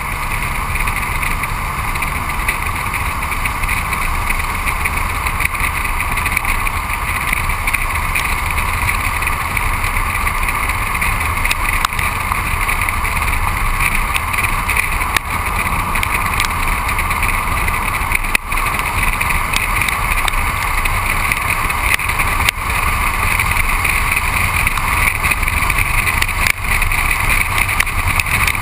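Steady wind rush and tyre roar from a car driving at road speed, picked up by a camera mounted low on the car's side beside the wheel. The noise dips briefly a few times.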